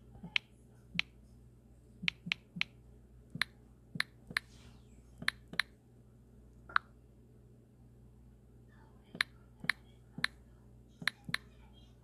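A run of sharp, short clicks or taps, irregular and in small clusters, about sixteen in all, with a pause of a couple of seconds before the last few.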